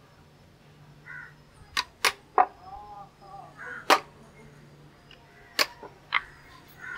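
Sharp taps and clicks from hand tools working a rat trap, about six spaced irregularly, the loudest about two and four seconds in, over a faint steady low hum.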